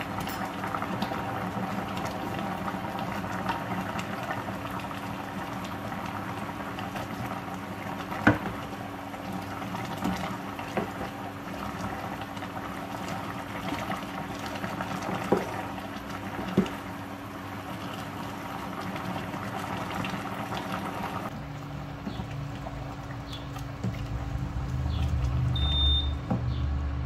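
A pot of coconut-milk vegetable soup simmering and bubbling while a wooden spoon stirs it, knocking sharply against the stainless steel pot three times. Near the end a low rumble builds up.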